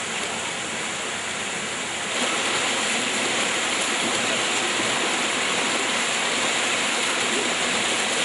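Rushing river water, a steady flowing noise that gets a little louder about two seconds in.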